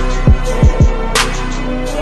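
Background music with a beat: deep drum hits and a sharp snare-like hit over held notes.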